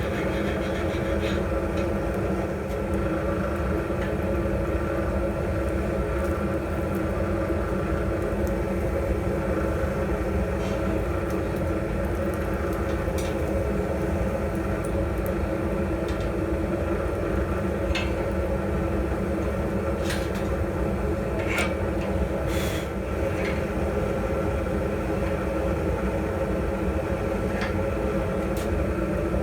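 A steady mechanical drone with several held tones over a low rumble, with a few light clicks and taps now and then.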